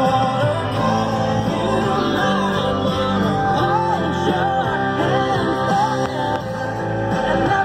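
Background music: a song with singing and guitar.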